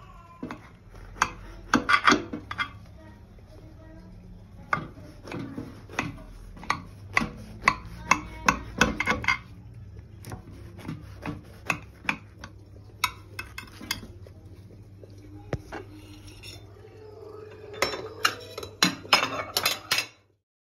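Kitchen knife cutting a baked brownie in a glass baking dish, the blade repeatedly clicking and scraping against the glass bottom in quick runs of strokes.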